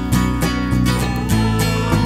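Background music: a strummed acoustic guitar in a steady rhythm.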